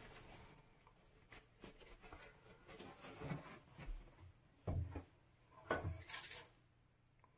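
Faint handling noises: a paper towel rustling and small plastic tub-spout diverter parts being wiped and turned in the fingers, with scattered light clicks and two soft knocks a little past halfway.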